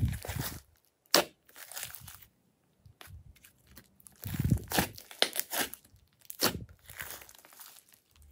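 Hands squeezing, stretching and folding a large mass of glossy slime, giving irregular wet squelches and crackles in short clusters with brief pauses between, the busiest stretch a little past the middle.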